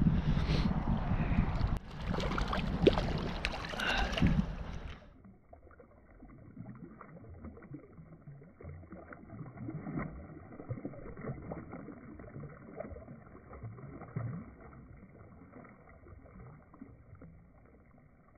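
Wind rumbling on the microphone over river water, with a few knocks from handling the fly rod. After a cut about five seconds in, quieter and muffled: faint water sloshing and splashing in shallow water as a rainbow trout is let out of a landing net.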